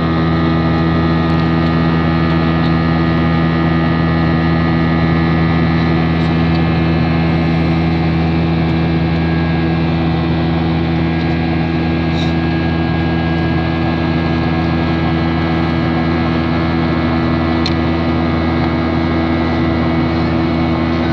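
Aircraft cabin noise in flight: a steady engine drone with several steady humming tones over an even rush.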